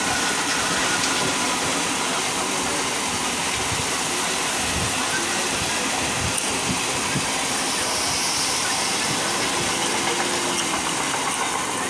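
Mumbai suburban electric local train running at speed, heard from its open doorway: a steady, loud rush of wheel and track noise with no let-up.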